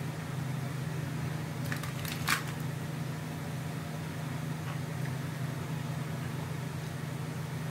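Steady low background hum, with two small clicks about two seconds in.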